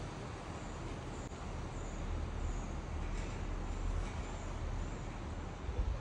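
Steady rumble and hiss of a moving chairlift ride. Faint short high chirps repeat roughly every half second.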